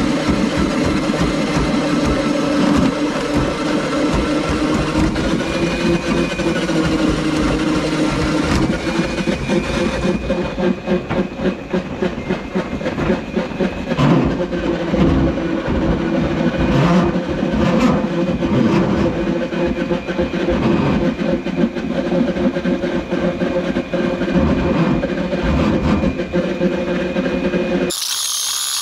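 Electric drain snake (motorised drum auger) running steadily, its motor's pitch wavering slightly as it feeds cable into the blocked drain. Near the end it cuts to a different, higher whine.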